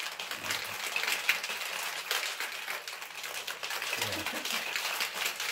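Ice cubes rattling hard and fast inside a metal cocktail shaker being shaken vigorously to chill and mix a margarita.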